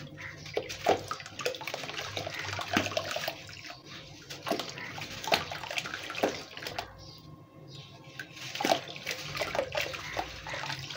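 A block of compressed sand being crushed and crumbled by hand into a tub of water: gritty crunching and crackling as it breaks, with splashing and a pouring hiss of grains dropping into the water.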